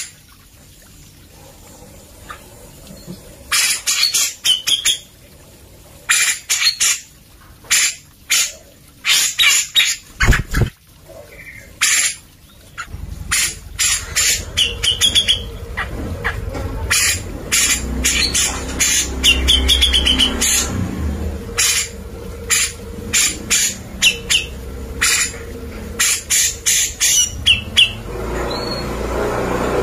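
Caged grey-cheeked bulbul (cucak jenggot) calling in irregular groups of short, loud, harsh notes, with a few brief whistled notes among them. A low rumble sits under the calls from about halfway in.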